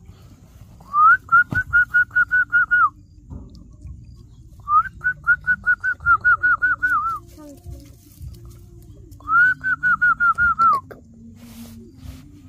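Three phrases of rapid whistled notes, each about two seconds long, about five notes a second at one steady pitch, each phrase opening with a short rising note.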